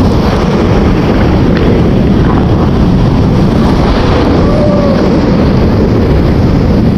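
Class 4 whitewater rapid rushing loudly and steadily around an inflatable raft.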